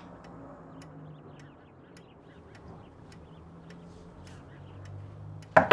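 A clock ticking faintly and steadily, a little under twice a second, over a low steady hum. Near the end a sudden loud knock and clatter, a door being opened.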